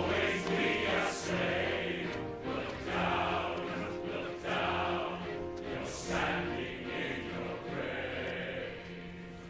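Music with a choir of held voices swelling and ebbing, growing fainter near the end.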